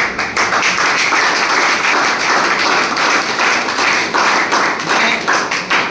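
A room full of students applauding. The clapping starts suddenly and thins to a few scattered claps near the end.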